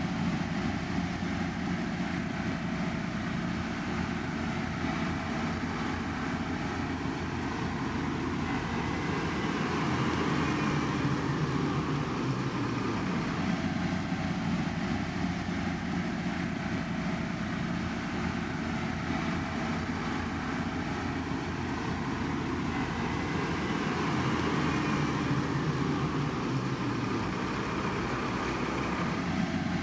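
Steady engine and machinery noise from heavy road-construction equipment. The noise holds an even level, and its pattern repeats about every fourteen seconds.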